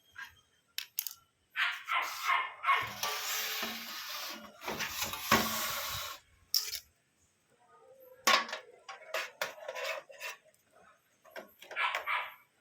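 Desktop computer case parts being handled: sharp clicks and knocks of metal parts and screws, with a stretch of scraping and rubbing about two to six seconds in.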